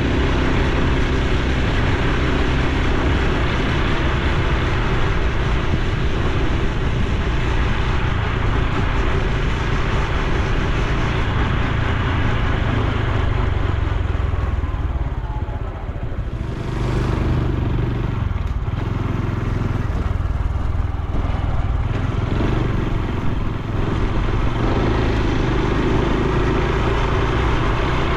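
Honda Super Cub C125's 125 cc single-cylinder four-stroke engine running under way, with wind and road noise. About halfway through the sound dips briefly, then the engine picks up again at a changed pitch.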